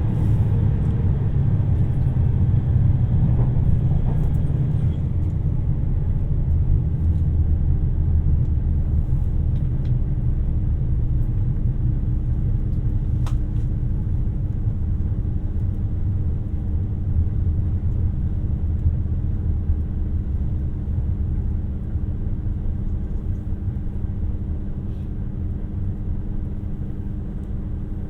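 Low, steady rumble of a 2700-series diesel express train heard from inside the passenger cabin: the diesel engine and running noise with a faint steady hum and a few light clicks, easing slightly toward the end.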